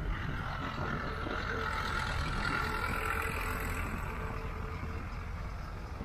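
A tractor passes close by on the sand, its engine running steadily with a held hum and whine. It grows a little louder towards the middle and then eases off.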